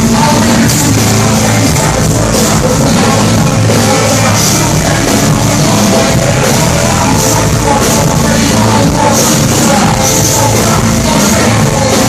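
A live band playing loudly with a vocal over it, picked up close from the stage. The sound is dense and even, with regular crashes in the high end.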